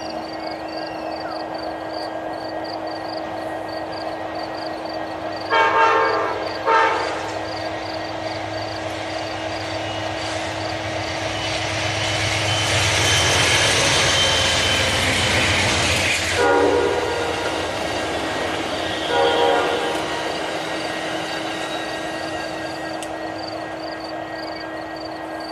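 Amtrak passenger train led by a GE P42DC diesel locomotive passing at speed. The horn sounds two short blasts as the train approaches. The rush of the train swells as it goes by near the middle, then two more short horn blasts come as it moves off and its noise fades.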